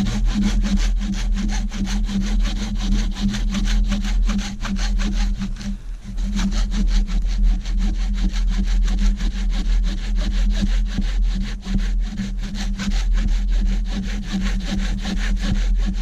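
Hand saw cutting through a dead log, in quick, steady back-and-forth strokes, with a brief pause about six seconds in.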